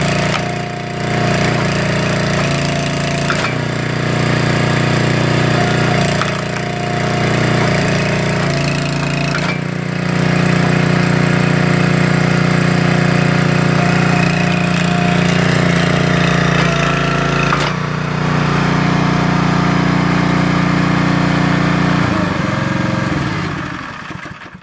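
Small gas engine driving the hydraulic pump of a 12-ton log splitter, running steadily and changing note every few seconds as the ram cycles and splits logs, with the odd crack of splitting wood. Near the end the engine is shut off and winds down.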